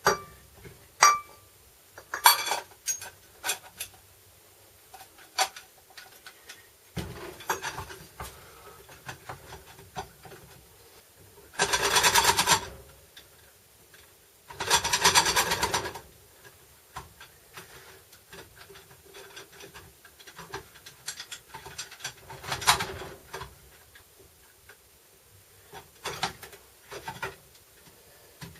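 Workshop handling noise from hand tools and metal transfer-case parts: scattered clicks and clinks, with two longer rasping bursts of about a second each in the middle.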